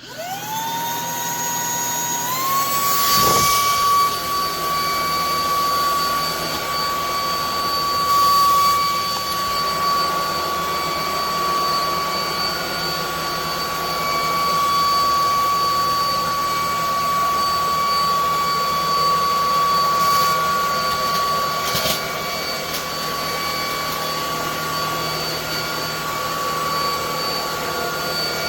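Cordless stick vacuum cleaner's high-speed motor switched on, spinning up with a rising whine, stepping up in pitch about two seconds in, then running steadily with a high whine over the hiss of rushing air. A few brief clicks near the end.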